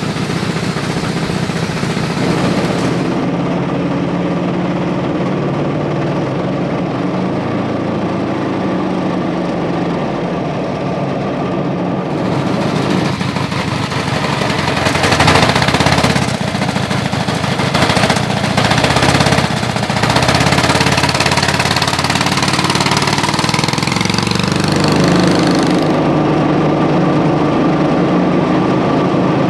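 Twin Honda-clone single-cylinder engines on a go-kart, coupled to a five-speed ATV transmission, running together and sounding something like an inline twin. They run louder and rougher for several seconds in the middle as the kart is driven.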